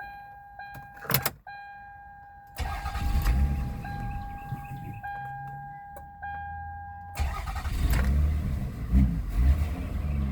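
2002 Toyota Avalon's V6 engine cranking and starting with the mass airflow sensor unplugged, then running with a few brief revs; the dirty MAF sensor is what kept it from starting. A steady electronic warning tone from the car sounds over the start and stops partway through.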